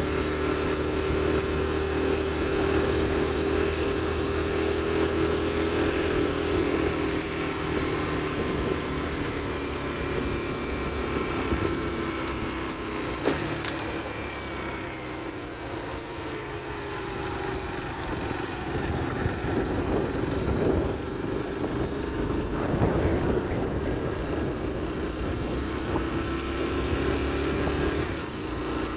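Yamaha AG125 farm motorcycle's single-cylinder two-stroke engine running under way, its pitch and level dropping as it slows about halfway through and picking up again after, with wind buffeting the microphone.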